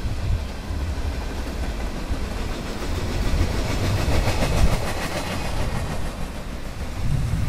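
Norfolk Southern freight train's hopper and gondola cars rolling past: a steady low rumble of steel wheels on rail, with a stretch of quick rhythmic clicking from the wheels about halfway through.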